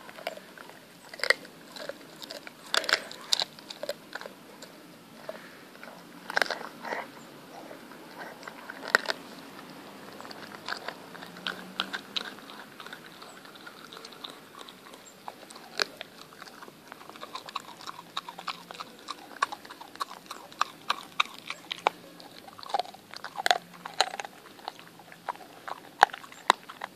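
An Appenzeller Mountain Dog × Stabijhoun cross chewing raw meat close up, with irregular bites and sharp crunches.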